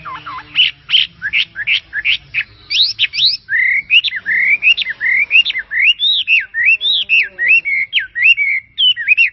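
A bird singing a fast, continuous run of short whistled chirps, about three to four notes a second, each note sweeping sharply up or down in pitch.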